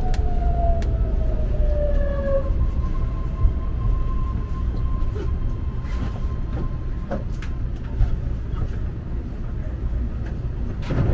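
A BART train car running on the track, heard from inside: a steady low rumble, with a whine that falls in pitch over the first couple of seconds, then a higher whine that holds steady and fades out about eight seconds in. A few light clicks and knocks sound along the way.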